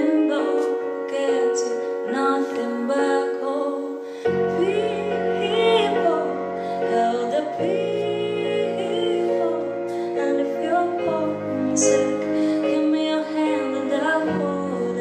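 A woman singing a slow ballad live into a microphone over sustained piano chords. Deeper bass chords come in about four seconds in and change every three seconds or so.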